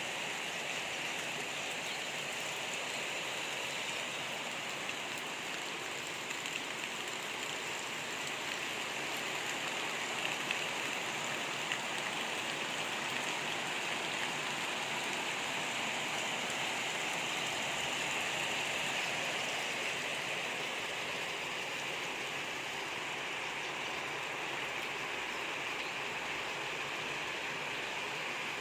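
Heavy rain from a rainstorm falling steadily, an even hiss with a few sharper ticks of drops now and then.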